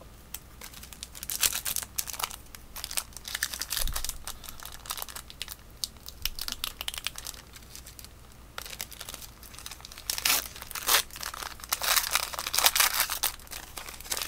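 Foil wrapper of a baseball card pack being torn open and crinkled, with the cards shuffled out. There are irregular rustling bursts, loudest about a second in and again about ten seconds in.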